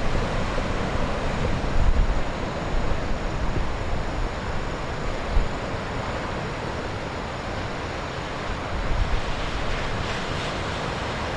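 Heavy typhoon surf breaking on the coast, with wind buffeting the microphone. It swells louder about two seconds in and again near nine seconds.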